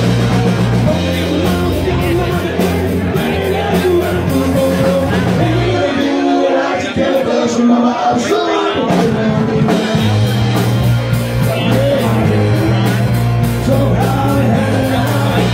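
Live rock band playing loudly with singing, drums and guitars. The low bass drops out for about four seconds in the middle, then comes back in.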